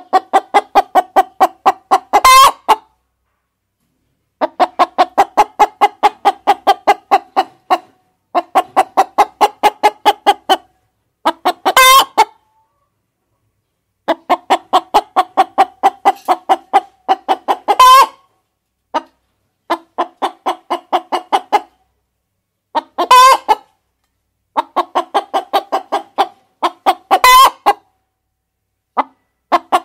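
Hens clucking in repeated runs of about four clucks a second, each run ending in a louder squawk, the pattern of a hen's cackle.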